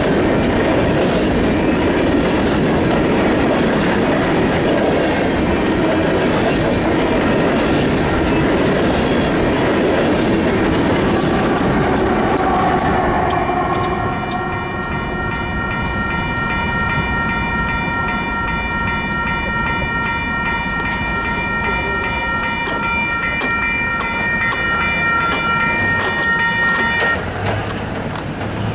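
Union Pacific freight train rolling past, wheels clattering over rail joints. About halfway through, a steady high ringing tone with several pitches starts over the rail noise and holds until just before the end.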